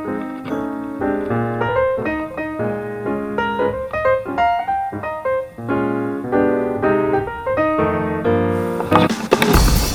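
Background piano music, a light melody over chords. In the last half second a louder, noisier sound cuts in over it.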